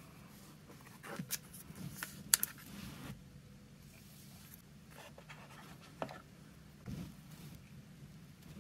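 Unboxing handling sounds: cardboard packaging inserts sliding and rubbing, with a handful of sharp clicks and taps as the phone and its charger are lifted out and set down, the sharpest a little over two seconds in.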